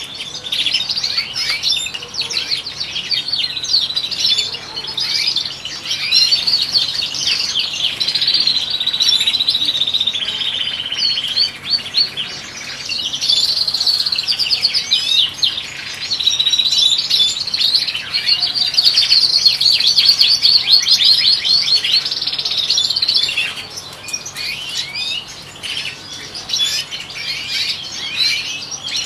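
European goldfinches singing: a fast, continuous twittering of rapid chirps and trills, with a held trill about a third of the way in, growing quieter near the end.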